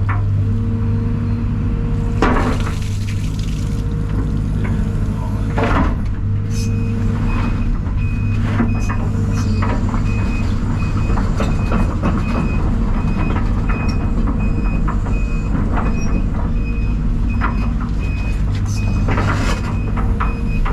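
Heavy diesel engine of an excavator running steadily with a deep hum, with a few loud clanks of digging. From about six seconds in a backup alarm beeps evenly, about one and a half beeps a second.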